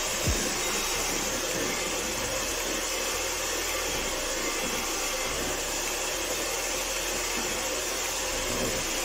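Kenwood electric hand mixer running steadily, its beaters whirring through a cream cheese mixture in a stainless steel bowl.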